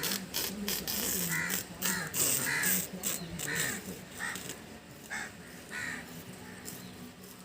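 A crow cawing, a run of about seven short calls that fades after about six seconds, with a few sharp clicks and rustles in the first second.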